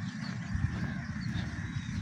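Crows calling, faint, over a steady low rumble of wind on the microphone.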